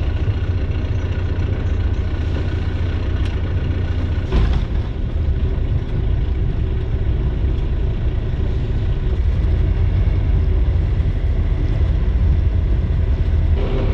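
The inboard engine of a 50-foot sailboat running slowly under way, a steady low drone. A single knock sounds about four seconds in.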